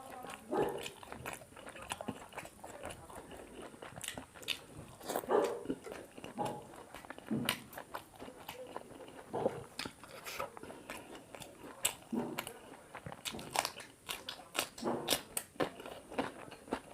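Close-miked chewing and wet mouth sounds of someone eating paratha with chicken curry: irregular smacks and clicks of bites and chewing.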